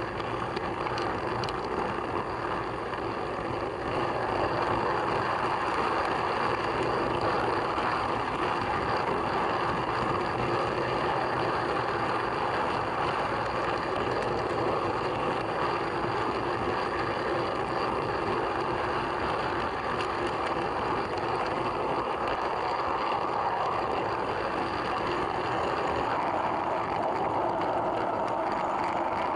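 Steady running noise of a model train, heard from a camera riding on one of its coaches: the wheels rolling on the rails, a little louder from about four seconds in.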